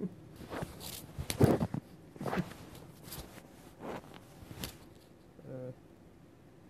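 A string of close rustling and scraping handling noises against the phone's microphone over about four seconds, then a short closed-mouth hum near the end.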